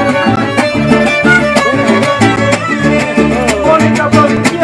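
Mariachi band playing live: violins with vibrato over a steady, bouncing bass beat and strummed chords.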